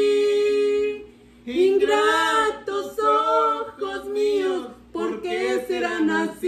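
A woman singing: a long held note that stops about a second in, then after a short pause wordless phrases that slide up and down in pitch.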